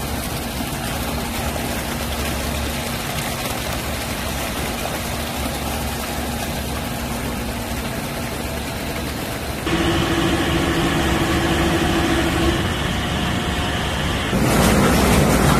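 Laver processing machinery running steadily, with water churning laver in a washing tank. It gets louder about ten seconds in, where a steady hum joins for a few seconds, and louder again near the end.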